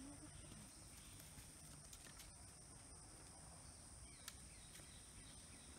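Near silence: faint forest ambience with a steady, high-pitched insect drone.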